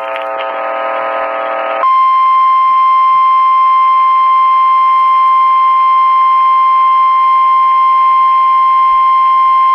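A harsh buzzing tone for about two seconds, then one steady high-pitched tone held through the rest: the NOAA Weather Radio 1050 Hz warning alarm tone that announces a severe thunderstorm warning broadcast.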